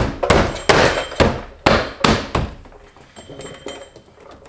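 Hand striking a BMW E92 M3's door trim panel to snap its plastic retaining clips home: about seven sharp thumps in the first two and a half seconds, then a few fainter knocks.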